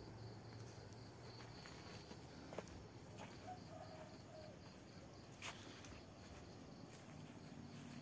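Faint outdoor ambience: an insect chirping in a steady pulsing rhythm of about four chirps a second, with a couple of brief soft clicks.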